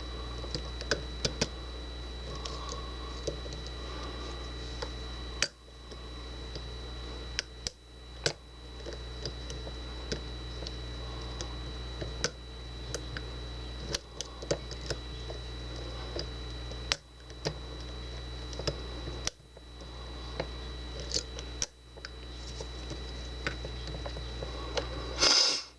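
Faint, irregular metallic clicks and scratches of a lock pick and tension wrench working the pins in a Master Lock deadbolt's keyway, over a steady electrical hum.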